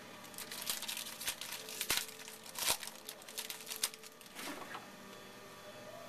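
Shiny foil wrapper of a Topps football card pack crinkling as it is handled, a run of sharp crackles that stops about five seconds in.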